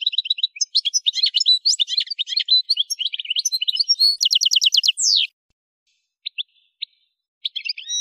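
Algerian goldfinch (Carduelis carduelis parva) singing: a fast, continuous run of high twittering and tinkling notes that ends about five seconds in with a quick trill and a falling note. After a pause come a few single chirps and a short burst of song near the end.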